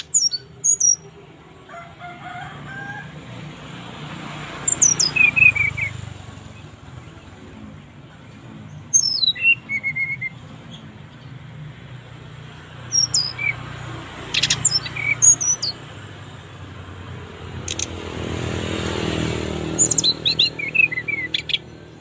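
Brown-chested jungle flycatcher (sikatan rimba dada coklat) singing: five short phrases of quick, high whistled notes, many sweeping downward, spaced about four to five seconds apart. A low background rumble swells and fades shortly before the last phrase.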